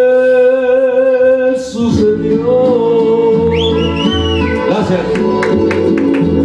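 A karaoke singer holds a long wavering note over the backing track for about two seconds, then the backing music plays on alone. A short whistle, rising and falling, comes about halfway through, and a steady beat of clicking percussion comes in near the end.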